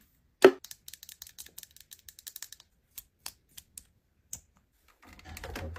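Plastic lipstick and lip gloss tubes clicking and rattling against each other and a plastic organizer tray as a hand picks through them. A sharper knock comes about half a second in, then a quick run of small clicks, then a few scattered ones.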